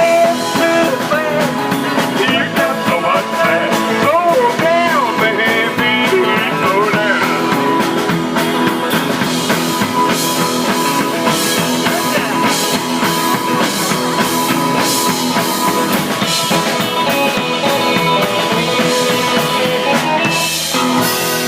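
Live rock and roll band playing, with lines bending in pitch a few seconds in.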